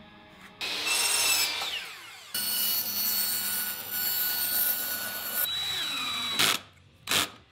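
Power drill running in two trigger pulls, a short one then one of about three seconds, each whine falling away as the motor winds down, followed by two brief bursts near the end.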